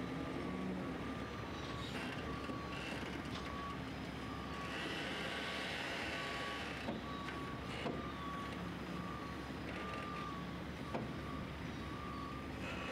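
Reversing alarm of a site vehicle or machine beeping steadily, about once a second, over a constant hum of machinery.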